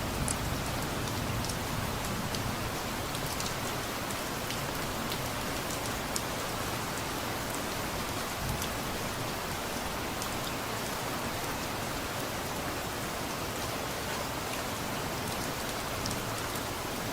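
Steady rain falling, with scattered individual drops tapping. A low rumble of distant thunder dies away in the first second or two.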